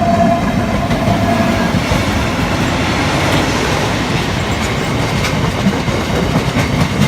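Freight train of tank wagons hauled by a Class 70 diesel-electric locomotive passing close by: a loud steady rumble with wheels clattering over the rails. A held tone fades out in the first two seconds.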